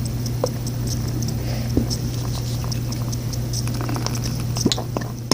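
Shampoo being squeezed from a bottle into a bowl: small wet squelching clicks and ticks over a steady low hum, which cuts off suddenly at the end.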